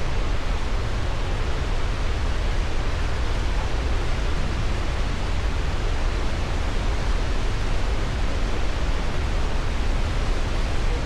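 Goðafoss waterfall: a steady, unbroken rush of falling water, heavy in the low end.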